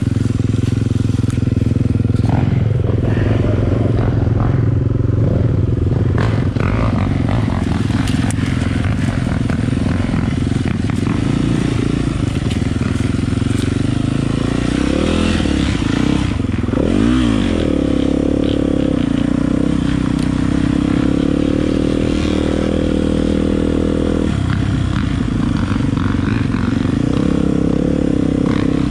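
Dirt bike engine running: idling with some scraping and clattering, a quick rev a little past halfway, then holding a steadier, higher note as the bike gets under way.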